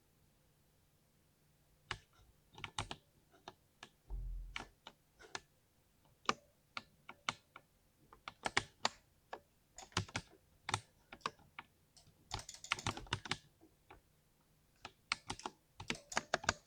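Alien 60 mechanical keyboard being typed on: irregular keystrokes with short pauses and a quick flurry of keys about twelve seconds in. One low thump comes about four seconds in.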